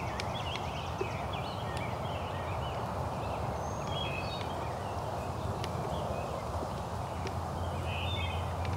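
Steady outdoor background noise, with clusters of short, high bird calls about a second in, about four seconds in and near the end, and a few faint clicks.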